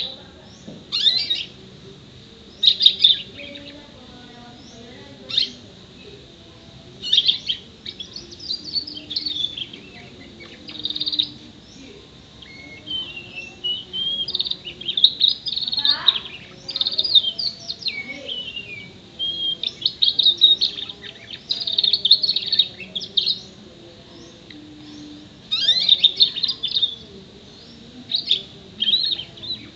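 A six-month-old red canary singing in short bursts of high chirps and trilled phrases, with pauses between them and a longer run of song through the middle. Its song is trained with imitations of other birds: Eurasian tree sparrow, prinia, white-eye and black-throated canary. It is not yet at full volume.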